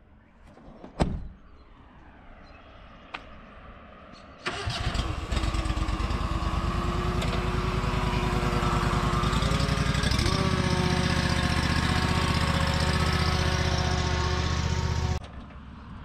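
A John Deere Z-Trak zero-turn mower's engine starts about four seconds in and runs steadily as the mower is driven off the trailer, its pitch dropping slightly partway through, then shuts off suddenly near the end. Before it, a single knock about a second in.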